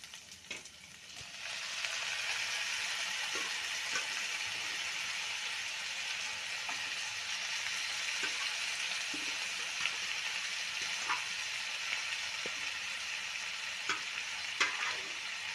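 Boiled chicken pieces frying in hot oil in a nonstick pan: a steady sizzle that swells up about a second and a half in, with occasional short taps and scrapes of a wooden spatula.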